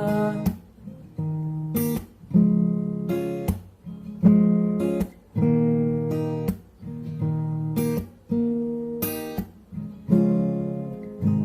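Acoustic guitar strumming chords in an instrumental break between sung verses. Each strum starts sharply and rings out before the next.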